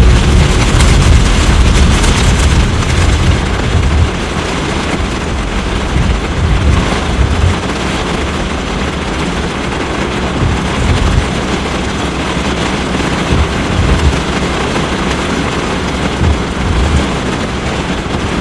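Heavy rain pouring onto a car's windshield and roof, heard from inside the cabin as a dense, steady hiss with a low rumble underneath. It is a little louder for the first few seconds.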